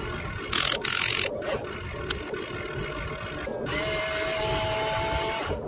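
Electric motors of a Huina RC excavator whining steadily at a fixed pitch as the arm lifts a full bucket, starting a little over halfway through. A loud burst of noise comes about a second in while the bucket digs into the dirt.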